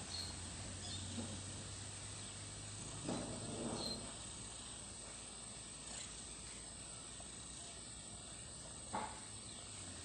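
Faint steady hiss and low hum from a security camera's microphone, with a soft rustle about three seconds in and a sharp click near the end.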